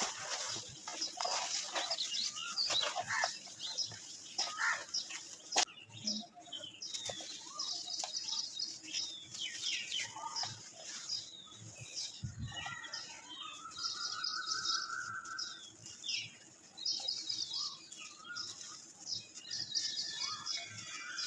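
Dry red dirt crumbling and crunching as hands squeeze and break it, with powder trickling back down. Birds chirp throughout, with one longer call a little past the middle.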